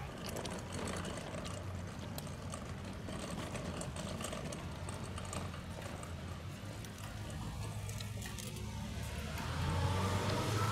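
Pet cart being pushed along, its wheels rolling with a steady low rumble and many small clicks and rattles. Near the end it gets louder as a rising whine comes in.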